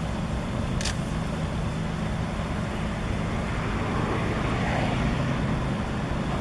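Steady rumble of road traffic, with a car seeming to pass around the fourth or fifth second. There is one short, sharp high click or chirp just under a second in.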